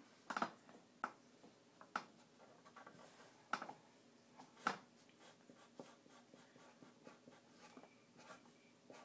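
Drawing on paper: faint scratching of a drawing tool on a sheet, with a handful of short sharp taps in the first five seconds.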